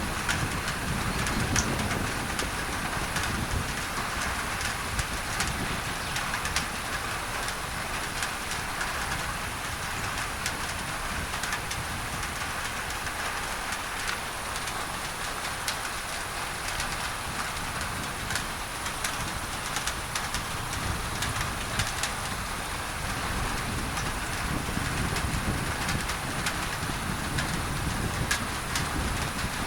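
Steady rain pattering on a tin roof, with many small drop clicks, layered over an even pink-noise hiss. A low rumble fades through the middle and grows again in the last few seconds.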